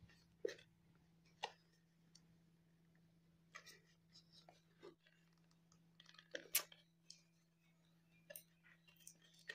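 Faint cardboard handling: a small box being slit open with a pen and its packaged contents pulled out, giving scattered brief clicks, scrapes and rustles, the loudest a little past halfway.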